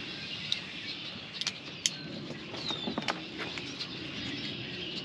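A few light clicks and handling noise from the radio's cable connector and handheld microphone, over faint outdoor background hiss with a bird calling.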